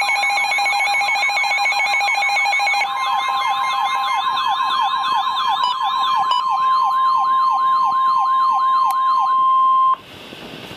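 Several electronic sirens sounding at once: a fast yelp that slows to a wail about six seconds in, a hi-lo two-tone for the first few seconds, and a steady alarm tone underneath. They all cut off suddenly about ten seconds in, leaving a quieter hiss.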